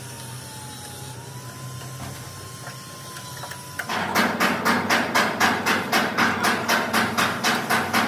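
A steady low hum, then about halfway in a run of sharp, evenly spaced hammer-like strikes begins, about four a second, much louder than the hum.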